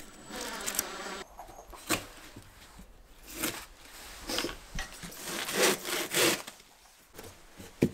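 Cork insulation board rubbing and scraping against the wooden framing as a small piece is worked into a gap: a string of short, rough scraping strokes with pauses between them, the loudest a little past the middle.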